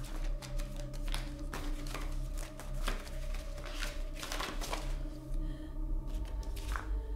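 A leather-bound journal handled on a wooden table: a run of short rustles and scrapes as its cord-tied cover is moved and opened, over a low, steady music drone.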